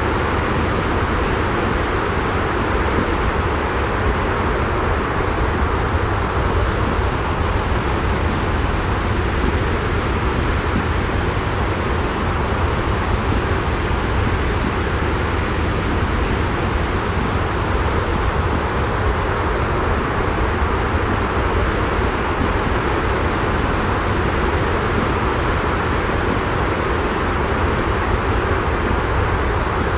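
Steady jet airliner cabin noise used as white noise: an even, unchanging hiss with a heavy deep rumble underneath.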